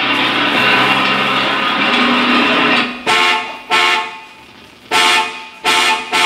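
Vehicle horn sound effect played over a theatre's sound system: one long sustained blast, then five short honks in quick succession, signalling a vehicle arriving.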